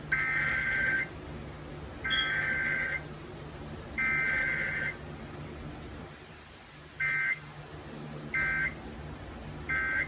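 Emergency Alert System SAME data bursts broadcast on FM radio. The digital header sounds three times as buzzy one-second bursts about a second apart, then three short end-of-message bursts follow, with no attention tone between. This is a Required Weekly Test.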